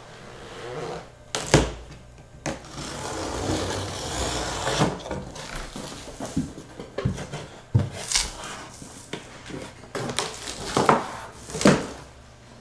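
A large cardboard shipping box being opened by hand: cardboard flaps folded back with several sharp knocks, and a longer scraping rustle of cardboard in the first half.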